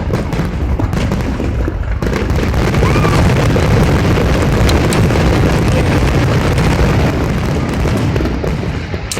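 Fireworks going off in a dense, continuous barrage of bangs and crackles, really loud, swelling to its loudest in the middle and easing slightly near the end.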